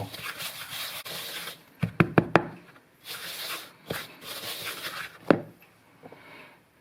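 A spoon stirring and scraping dough in a mixing bowl, in short scratchy spells, with sharp knocks against the bowl: a quick cluster about two seconds in and a louder single knock about five seconds in.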